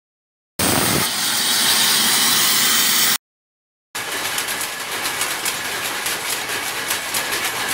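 Intro sound effects: a loud steady hiss lasting about two and a half seconds that stops abruptly, then after a short silence a rapidly flickering rushing noise that cuts off suddenly.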